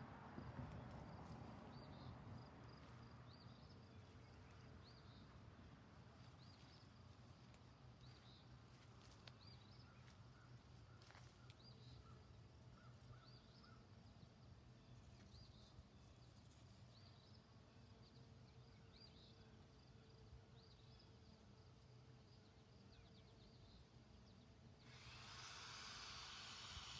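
Near silence: faint outdoor ambience with a small high chirp repeating about once a second. A rushing hiss comes up near the end.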